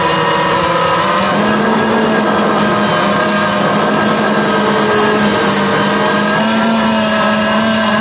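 FPV quadcopter's electric motors and propellers whining steadily in flight, the pitch drifting up and down with the throttle.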